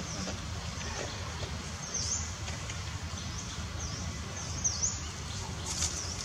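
A bird repeating a short high call that dips and rises in pitch, about once a second, over a steady low rumble of outdoor background noise.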